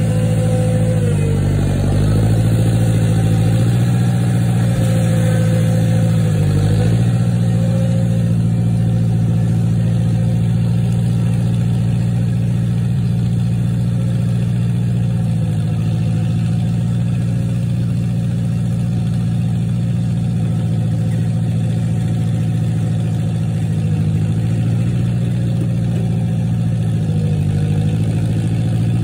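International Harvester 544 tractor's engine running steadily while tilling, its pitch sagging briefly a few times as it takes load.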